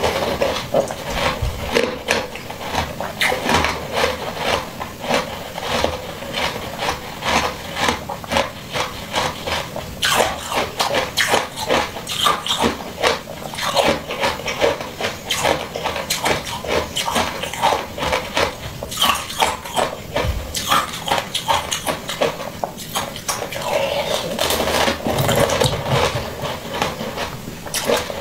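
Close-miked eating: rapid crunching and chewing of mouthfuls of a coloured dome-shaped treat, several crisp crunches a second.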